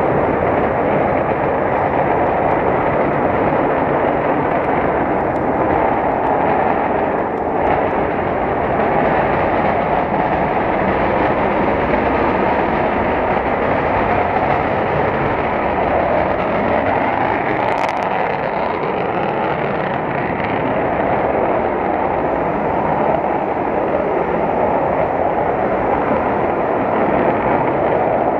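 B-1B Lancer's four turbofan jet engines at takeoff power, heard from a distance: a loud, steady jet noise through the takeoff roll and climb-out.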